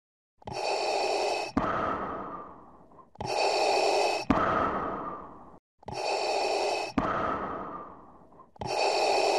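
A looped intro sound effect: an airy, breath-like sound lasting about a second, cut by a sharp click, then a fading hiss. The identical cycle repeats four times, about every two and a half seconds.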